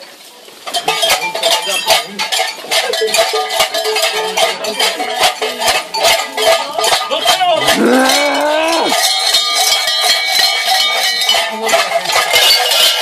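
Cowbells on costumed devils clanging and rattling irregularly as the wearers move about, starting about a second in. About two-thirds of the way through, a voice lets out one drawn-out cry.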